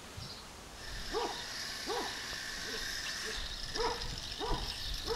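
A dog barking repeatedly, about six short barks starting about a second in, over a steady high hiss.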